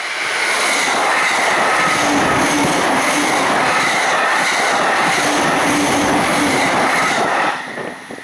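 A Joban Line train passing at high speed over a level crossing: the rush of wheels and air builds, holds loud for about seven seconds, then drops away sharply near the end.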